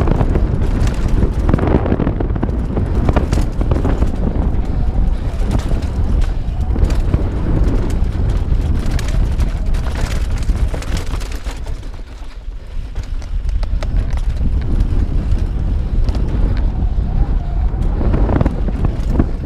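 Santa Cruz Bronson mountain bike ridden fast down a dirt trail: wind rumbling on the microphone, with the tyres, chain and frame clattering in quick irregular knocks over rough ground. The noise eases briefly about twelve seconds in, then builds again.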